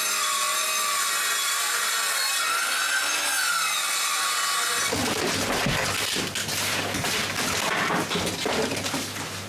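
A power saw running steadily as it cuts through wooden floor planks, its pitch dipping briefly under load about three seconds in. About five seconds in the motor stops and rough wooden scraping and knocking takes over.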